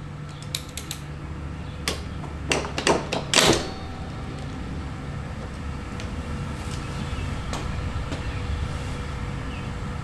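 A 10mm socket wrench loosening the oil drain plug on a Honda EU3000iS generator. A few sharp metal clicks are followed, about two and a half seconds in, by a louder cluster of clacks, all over a steady low hum.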